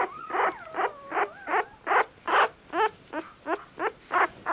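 Newborn mixed-breed puppy squealing in a steady run of short, high cries, about two or three a second.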